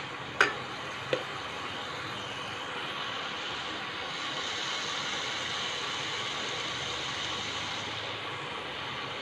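A steel spoon knocks against the pan twice in the first second, then thick prawn masala gravy sizzles steadily in the pan, a little louder from about four seconds in.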